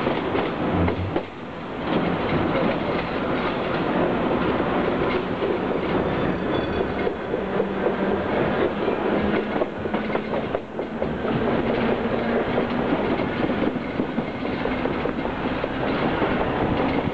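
Commuter train running along the track, heard from inside the carriage: a steady clatter of the wheels over the rails, briefly quieter about a second and a half in.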